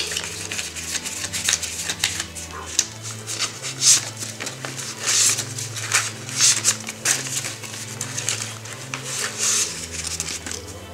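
A thick wad of paper banknotes being counted by hand, the notes rustling and flicking one after another, over background music with low sustained bass notes.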